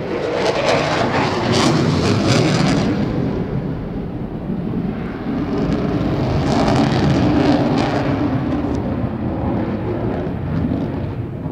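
Loud jet roar of a Eurofighter Typhoon's two EJ200 turbofan engines at high display power. It swells twice, about a second in and again around six seconds in, with a crackling edge at each peak.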